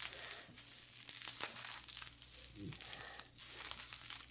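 Bubble wrap crinkling and rustling as hands work a hatching egg out of its individual wrapping, with small faint crackles.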